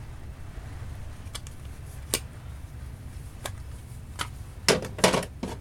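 Micrometers being handled and set down in a toolbox drawer: a few separate sharp metal clicks, then a louder cluster of clacks and knocks near the end, over a low steady rumble.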